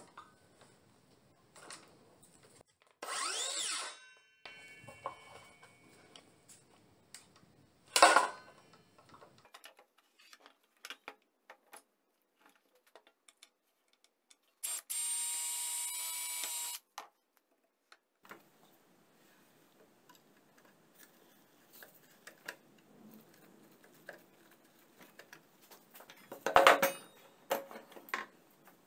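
Workshop handling of cordless power tools: scattered clicks and knocks, a short motor whir about three seconds in, and a sharp knock, the loudest sound, about eight seconds in. Past the middle a Greenworks cordless drill runs steadily for about two seconds, then a burst of clattering comes near the end.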